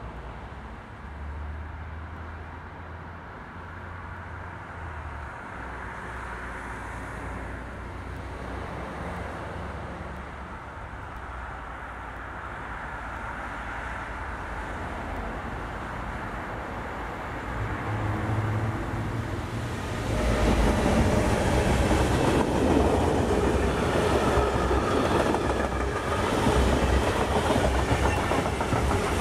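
Freight train hauled by an electric locomotive, approaching from a distance and growing slowly louder, then passing close by from about two-thirds of the way in. Its covered goods wagons and hopper and tank wagons rumble and clatter steadily over the rails.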